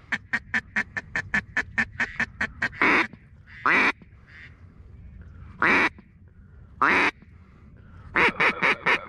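A duck call blown close by: a fast run of short clucks, about six a second, then four single drawn-out quacks spaced a second or two apart, and a quick string of quacks near the end.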